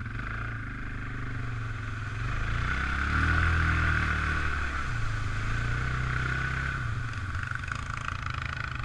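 Suzuki ATV's single-cylinder four-stroke engine running under throttle while riding a flooded trail. It revs up about two seconds in, is loudest around three and a half seconds, and eases back about five seconds in.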